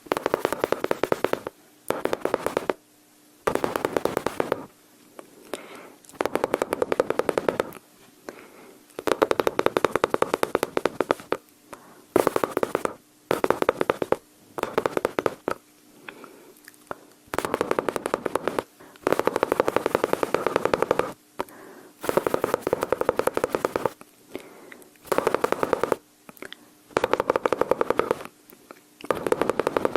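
Close-miked mouth sounds imitating machine-gun fire: a run of rapid clicking, rattling bursts, each a second or two long, with short pauses between them.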